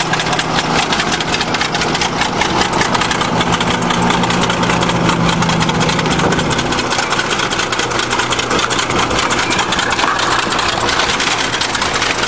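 The heavy diesel engine of a 20-ton bulldozer running with a dense, fast clatter, mixed with the engine of a car held at speed by a rock on its gas pedal. A steady droning tone stops a little over halfway through.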